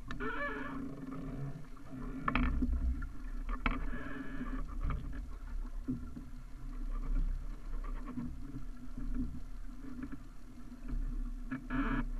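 Water splashing and gurgling along the hull of a small sailing dinghy under way, with a steady wind rumble on the microphone. Several sharp knocks and a few short creaky squeaks from the boat or its rig come through now and then.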